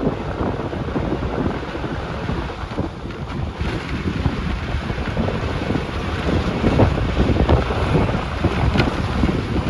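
Bus under way: steady engine and road rumble with wind buffeting the microphone, and a few faint rattles.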